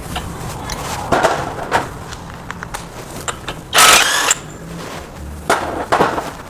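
Workshop tool work on a car's wheel hub: scattered metal clicks and knocks, with a short loud hissing burst about four seconds in and a briefer one near the end.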